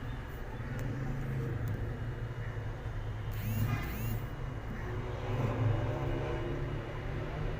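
A steady low rumble, with a brief burst of high lovebird chirps about three and a half seconds in.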